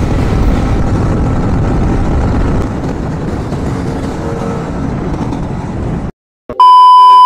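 Yamaha MT-15's single-cylinder engine running under way, mixed with wind and road noise, until the sound cuts off abruptly about six seconds in. Then a loud, steady electronic beep at a single pitch starts and holds.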